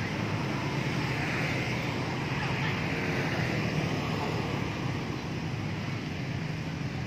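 Steady street ambience: a continuous hum of motorbike traffic running along the road beside the square.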